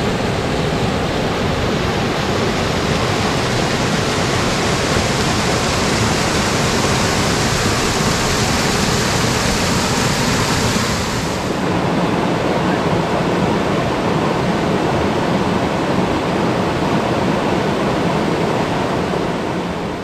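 Water of a small waterfall cascade rushing over rock ledges into a pool: a steady, even rush of white noise. About halfway through it suddenly loses some of its hiss and sounds slightly duller.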